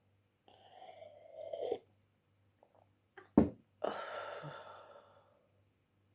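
A person's breath sounds: a long noisy intake that grows louder, then about three and a half seconds in a sudden sharp burst, followed by a breathy exhale that fades out over a second or so.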